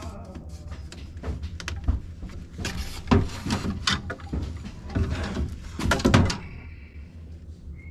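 Irregular hard knocks and clacks of PVC drain pipe and fittings being handled and pulled apart, in short bunches that are loudest around the middle and quieten near the end.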